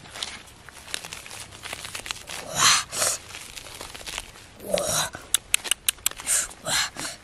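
Ripe jackfruit being pulled apart by hand: irregular bursts of tearing as the flesh and fibres rip. A quick run of sharp clicks comes a little past five seconds in.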